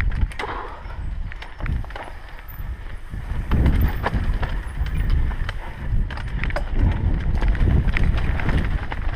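Mountain bike rattling down a rough dirt and stone trail: many sharp clicks and knocks from the bike and tyres over rocks, over a heavy low rumble.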